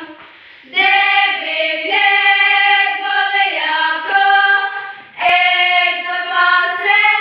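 A group of girls singing a prayer song together, with no words spoken. The singing starts about a second in and breaks off briefly about five seconds in before going on.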